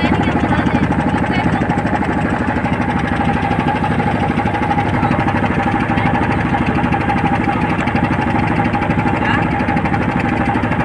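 A boat's engine running steadily, heard from on board, with a rapid, even pulsing beat and a steady hum.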